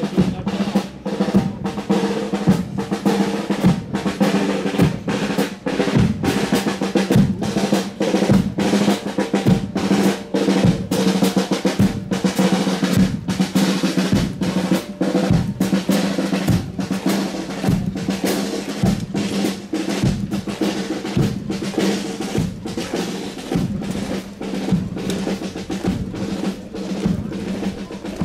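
Marching band playing, with snare and bass drum beating a steady march rhythm of about two strokes a second over sustained band notes.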